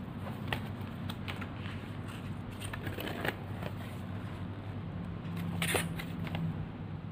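Stiff printed card sheets of a 3D house puzzle rustling and clicking as they are handled and turned over, with a louder rustle about two-thirds of the way through.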